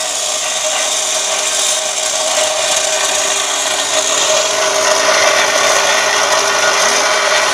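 Home-assembled cut-off machine, an abrasive cut-off wheel driven by an external electric motor, grinding through a steel pipe: a continuous harsh grinding hiss with a steady whine underneath.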